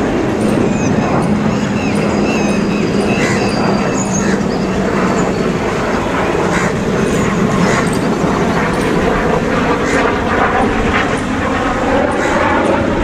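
ALCo diesel locomotive engine chugging under power, with steady rail and train noise; the engine note rises near the end.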